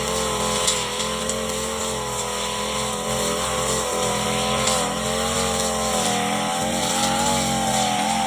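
Brush cutter engine running steadily at high speed, its pitch rising a little about six seconds in.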